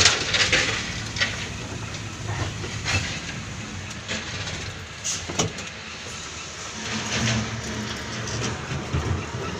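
Heavy diesel engine running steadily, with a few sharp knocks and clanks, once near the middle and once near the end.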